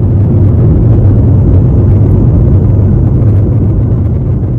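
Jet airliner heard from inside the cabin as it rolls along the runway: a loud, steady low rumble of engines and wheels with a rushing hiss above it.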